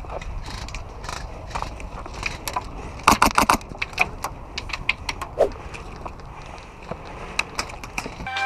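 Airsoft gunfire: a quick burst of about half a dozen shots from an airsoft rifle about three seconds in, with scattered single sharp clicks of shots or BB hits before and after it.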